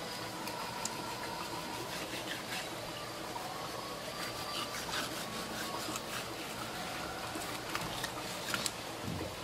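Knife blade slicing and scraping along a small shark's fillet on a cutting board: irregular wet cutting sounds with small clicks and taps of the blade, over a steady watery hiss.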